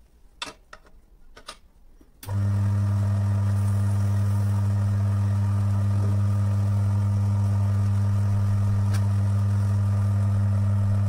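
Electric motor of a Timken-type lubricity test machine switching on about two seconds in and running with a loud, steady hum, turning the brass test ring to mix the lubricant in its trough. A few light handling knocks come before it starts.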